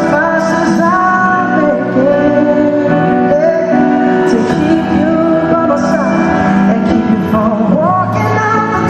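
A live pop ballad: a male lead singer holds long notes with vibrato over a band's steady accompaniment.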